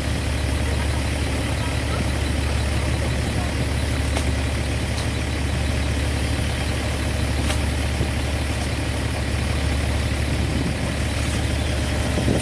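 Yanmar 82V combine harvester's diesel engine idling steadily, low-pitched and even.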